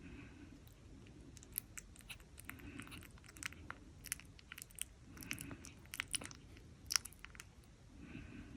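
Jack Russell Pomeranian puppies making small mouth noises: a quick run of sharp little clicks and smacks like chewing, with a soft breath or squeak every few seconds.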